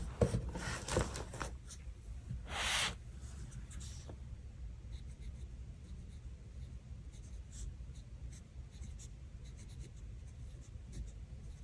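Close-up paper handling on a planner page: small rustles and clicks, a louder scratchy rub about two and a half seconds in, then faint scratching like a pen writing on paper.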